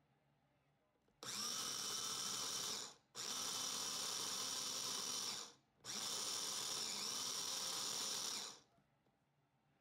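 Electric mini food chopper running in three bursts of about two seconds each with short breaks between, its motor whining steadily as it minces chicken breast and egg in a glass bowl.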